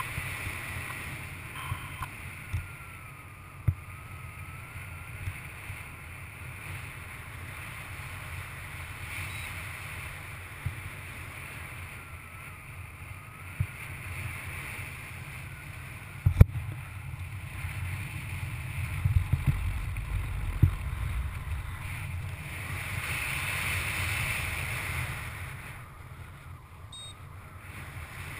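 Wind rushing over the microphone of a camera on a paraglider in flight: a steady low buffeting with a hiss. A few sharp knocks break through; the loudest comes about halfway through.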